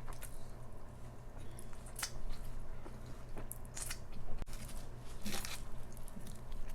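Close-miked biting and chewing of crisp food, a crunch now and then, loudest about two, four and five seconds in.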